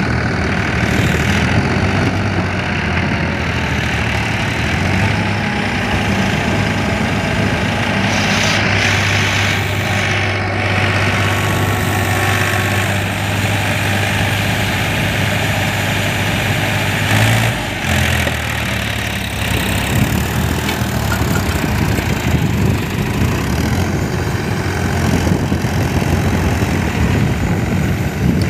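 Tractor diesel engines running steadily as a cage-wheeled tractor tows a mud-stuck tractor out on a chain. The engine note dips and changes a little past halfway.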